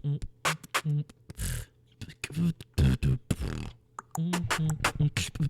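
Beatboxing: a fast rhythmic run of mouth-made kicks, clicks and hissing snares mixed with short hummed notes.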